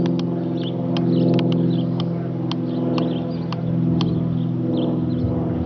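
Cirrus SR22 with a four-bladed propeller flying overhead: a steady, low drone of its propeller and six-cylinder piston engine, made of several pitched layers, swelling slightly about a second in and again around four seconds.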